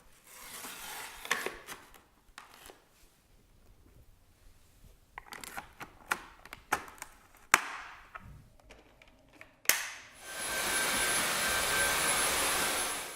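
Plastic parts of a Dyson V8 cordless vacuum's cleaner head clicking and knocking as they are handled and fitted. About ten seconds in, the vacuum switches on: a steady loud rush of air with a high whine, cutting off abruptly.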